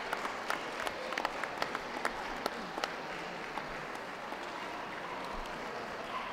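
Audience applause: scattered hand claps that thin out after about three seconds, over a steady hall background.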